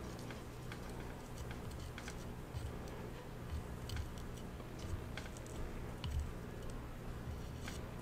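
Faint, irregular small ticks and clicks with a few soft low bumps as a soldering iron works the solder joint of a coax antenna wire on a VTX circuit board, over a faint steady low hum.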